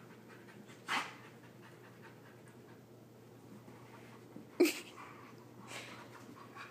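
Dogs play-wrestling: a husky pup and its companion give short breathy huffs and a brief low growl-like sound about four and a half seconds in, between quieter stretches of panting.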